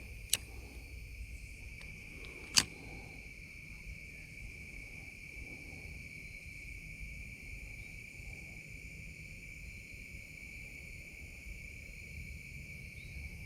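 Steady, high, unbroken chorus of insects at a pond in the evening, with two sharp clicks: a small one about half a second in and a louder one about two and a half seconds in.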